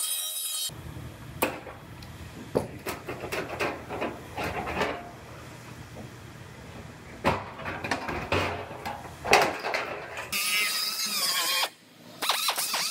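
Cut-off wheel whining as it cuts through car body sheet metal, stopping about half a second in. Irregular metallic knocks and rattles follow as the cut quarter-panel section is worked loose by hand. Near the end the cut-off wheel spins up and cuts again, with a brief pause.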